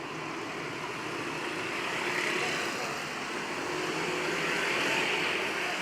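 Road traffic: motor vehicles running past on a road, the noise swelling twice as vehicles go by.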